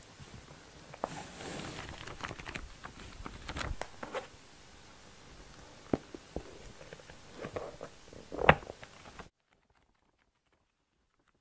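Hands handling a paperback book: pages rustling and turning, with light taps and a louder knock about eight and a half seconds in as the book is shut. Then the sound cuts off to silence.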